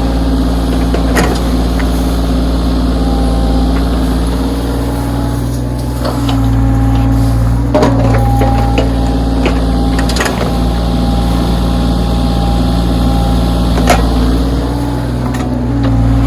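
Backhoe's diesel engine running under hydraulic load, its pitch dropping and rising a few times as the boom and bucket work, with several sharp metallic clanks from the bucket and machine.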